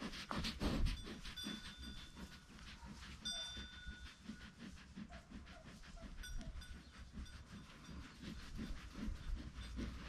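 A sheep chewing right at the microphone: soft, quick crunching clicks, about three or four a second.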